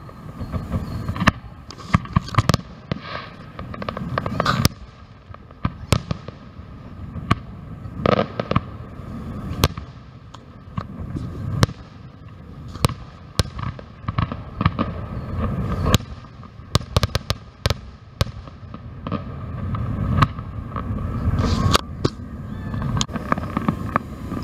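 Aerial fireworks display: shells bursting one after another in a rapid, irregular series of sharp bangs and crackles over a low rumble.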